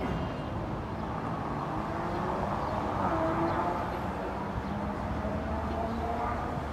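Market–Frankford Line elevated train approaching: a steady low rumble, with a faint whine near the middle.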